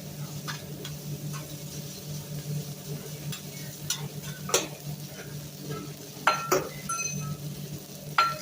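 Metal spatulas clinking and scraping on a teppanyaki flat-top griddle while food sizzles. There are sharp ringing clanks about halfway through, two close together past six seconds, and one near the end, over a steady low hum.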